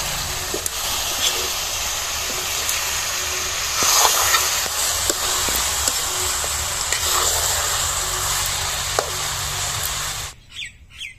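Raw mutton, tripe and liver frying in hot mustard oil with onions in a kadhai, sizzling steadily while a metal ladle stirs and scrapes, with scattered clicks of the ladle against the pan. The sizzle cuts off abruptly about ten seconds in.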